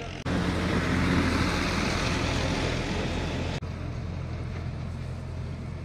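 Steady low engine hum, with a louder rushing noise that cuts in abruptly just after the start and cuts off abruptly about three and a half seconds in.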